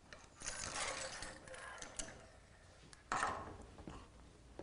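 Metal parts of a motorcycle front fork being handled in a vise: scraping and rattling as the spring and damper rod are worked, with one sharp, loud metal clatter a little after three seconds in.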